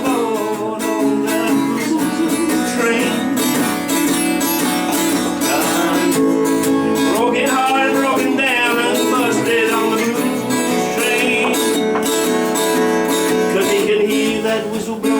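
Acoustic guitar strummed in a steady rhythm in a country-blues song, with a lead melody line bending up and down in pitch over it during an instrumental passage.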